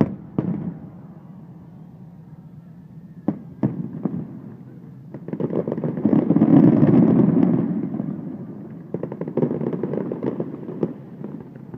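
Aerial fireworks shells bursting: a few separate sharp booms in the first four seconds, then a dense swell of many rapid bursts from about five seconds in that peaks and fades, and another cluster of quick cracks near the end.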